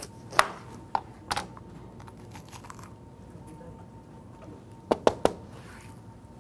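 Kitchen knife cutting a green bell pepper into chunks, the blade knocking on the cutting board: about four sharp knocks in the first second and a half, then three in quick succession about five seconds in.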